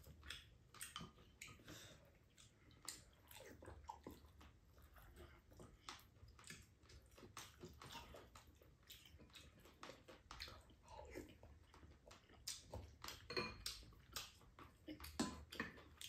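Faint eating sounds: spoons clicking and scraping against bowls, with quiet chewing.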